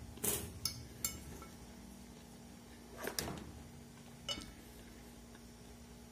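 A metal fork clinking and scraping against a ceramic bowl while eating: a few short clinks in the first second, a longer scrape about three seconds in, and one more clink a second later.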